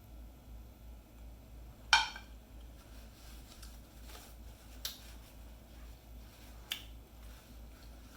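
Eating utensil clinking against a plate: one sharp, ringing clink about two seconds in and two lighter clicks later, over a low steady hum.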